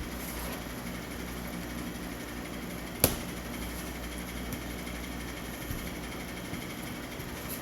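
A steady low hum of room noise with a single sharp tap about three seconds in, as of a small object knocked or set down on a workbench.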